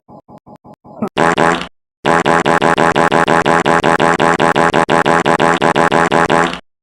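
Fart sound effects: a few short, quiet puffs, then a brief loud one, then a long, loud, rapidly fluttering fart lasting about four and a half seconds that cuts off suddenly.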